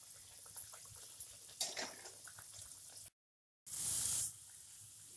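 A kachori deep-frying in hot oil in a kadai: a faint, steady sizzle. About three seconds in, the sound cuts out completely for half a second and comes back with a brief, louder hiss.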